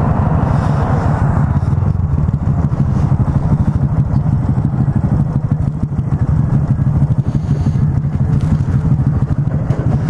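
Honda Grom's single-cylinder 125 cc engine idling through a Yoshimura RS-2 full exhaust, a steady low rumble.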